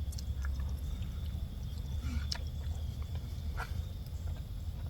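Wood campfire with freshly added logs crackling sparsely, a few short pops and ticks over a low steady rumble.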